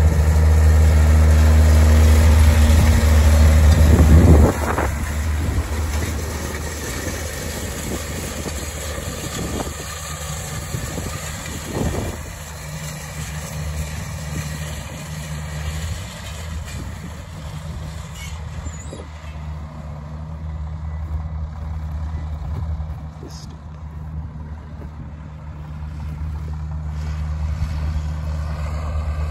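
John Deere 7410 tractor's diesel engine running under load as it pulls a grain drill. It is loud and close for the first four and a half seconds, then drops suddenly to a steadier, more distant engine sound that grows a little louder near the end.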